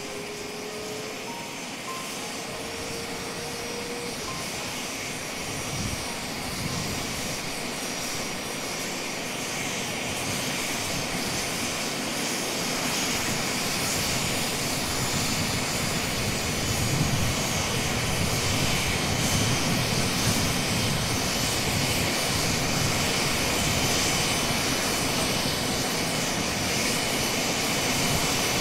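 Twin Jakadofsky PRO 6000 model turbine engines of a large-scale Kamov Ka-52 model helicopter running, growing steadily louder as they spool up, with a thin high whine over a dense rushing noise.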